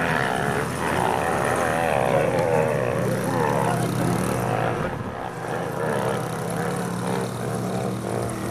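Small engine of a children's mini dirt bike running as it rides along, a steady buzz whose pitch wavers up and down as the throttle opens and closes, slightly quieter in the second half.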